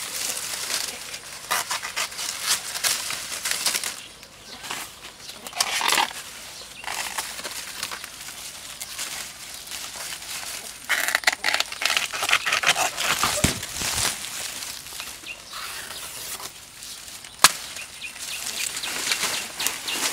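Dry banana leaves rustling and crackling as a banana stalk is pulled and stripped by hand, in irregular bursts, with one sharp crack about three-quarters of the way through.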